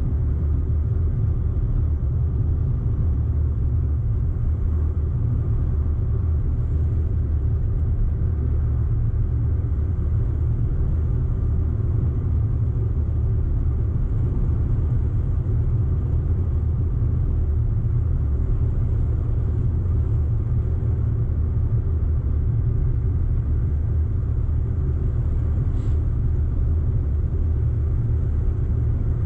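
An Audi car being driven at a steady pace: a steady low rumble of engine and road noise, with one short click near the end.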